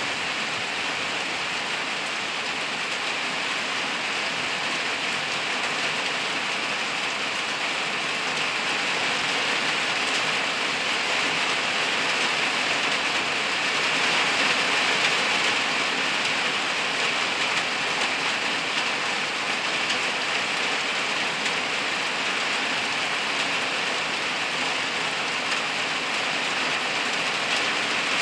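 Rain shower falling steadily on leaves and the forest floor, a dense, even hiss that swells a little about halfway through.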